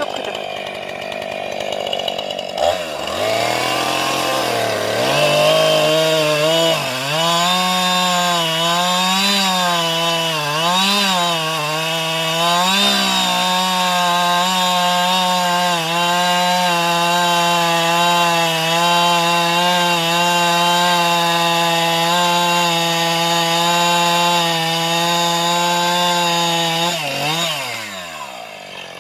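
Chainsaw engine starting up and being revved up and down several times, then held at a steady high speed for about a quarter of a minute before winding down near the end.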